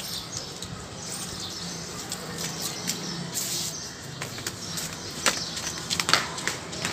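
Water running from a garden hose and splashing onto a tiled roof floor, with scattered sharp clicks and knocks; the loudest knocks come about five and six seconds in.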